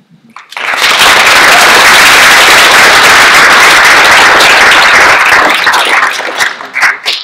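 Audience applauding. The applause swells within the first second, holds, then thins to a few scattered claps near the end.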